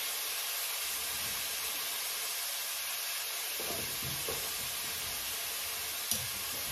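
Hot cooking oil frying on a gas stove, a steady sizzling hiss, with a few light knocks from about halfway and a single click near the end.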